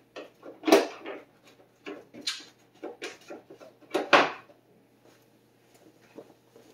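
Knocks and clatter of hard objects being handled while someone rummages for a tool: a run of sharp knocks in the first four seconds, then only light taps.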